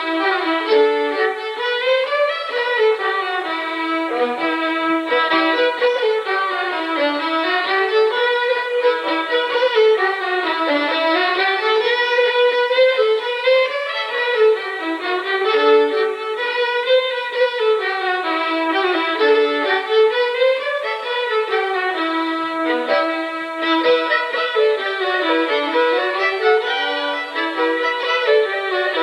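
Fiddle playing a lively traditional tune, with quick runs of notes that rise and fall over and over.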